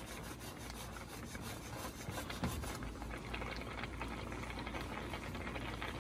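Water boiling in a stainless steel skillet of shrimp: a steady bubbling hiss made of many small crackles.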